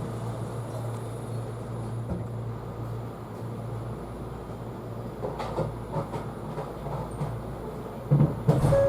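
Steady low electrical hum of a stationary Kintetsu 80000 series Hinotori electric train, with a few loud knocks near the end.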